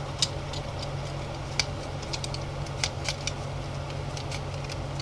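Scattered small clicks and creaks of a stuck plastic Pop Teenies capsule being twisted in the hands, over a steady low hum.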